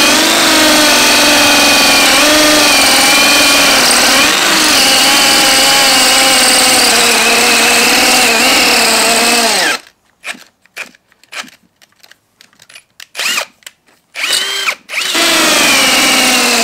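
Ryobi P251 brushless hammer drill boring into a concrete block with a masonry bit. The motor runs steadily under load for about ten seconds, its pitch wavering slightly, then stops. A few short bursts follow, and near the end it runs steadily again.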